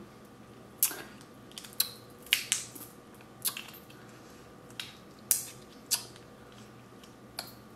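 Seafood shells being cracked and snapped open while eating: about a dozen short, sharp cracks at irregular intervals.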